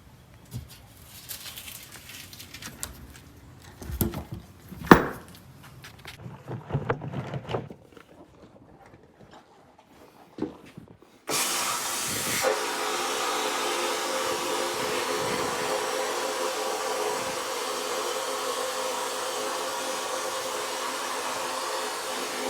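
A few knocks and clunks, then about halfway in a vapor blaster's nozzle starts with a sudden loud hiss and keeps spraying steadily. It is blasting glass-bead slurry onto an aluminum air-cooled Volkswagen cylinder head.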